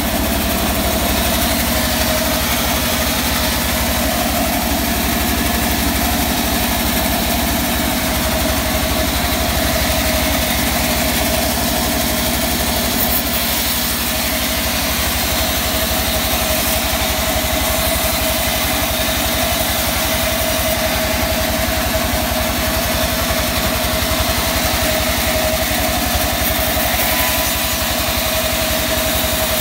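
Band sawmill running steadily: a continuous engine-driven machine hum with a fast even pulse underneath and a steady held mid-pitched tone, unchanging throughout.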